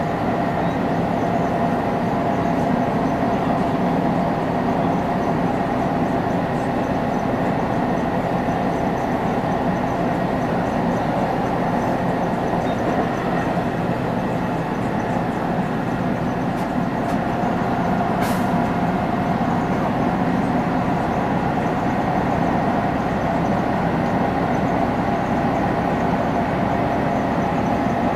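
Steady running noise inside a Finnish Dm7 'Lättähattu' diesel railbus travelling at speed: drone and rail noise with a steady whine, and one short sharp click about two-thirds of the way through.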